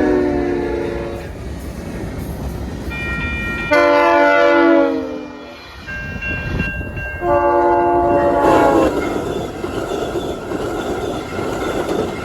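VIA Rail passenger train's locomotive horn sounding several blasts for the crossing; the longest blast drops in pitch as the train passes. After the last blast, the rush of the fast-moving train passing by continues.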